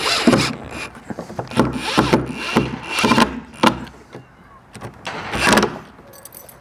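Metabo cordless drill driver driving wood screws through a garage door rim lock's case in several short bursts, its motor whirring up and down with each trigger pull as the screws go home.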